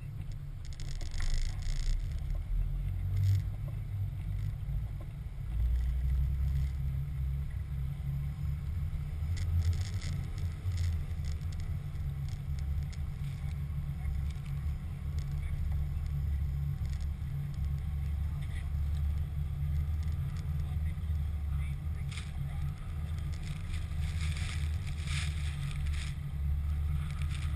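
Pickup truck on a Sno Trex rubber track system driving through snow, heard from a camera mounted on the truck's side: a steady low rumble with light clicks and scrapes here and there.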